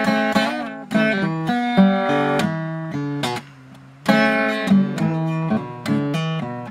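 Acoustic guitar strumming blues chords, with a short break a little past halfway before the strumming picks up again.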